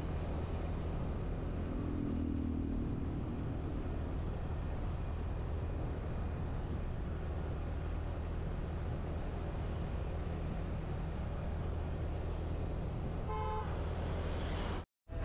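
Motorcycle engine running steadily while riding, with wind rumble on the microphone. A short horn toot sounds near the end, and then the sound cuts out for an instant.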